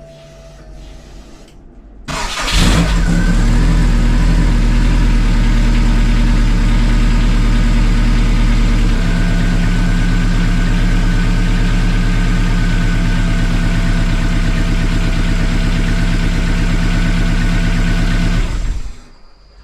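Subaru's turbocharged flat-four engine starting about two seconds in, after its injector plugs were replaced to cure a misfire, then running steadily. Its note shifts about seven seconds later, and it stops abruptly near the end.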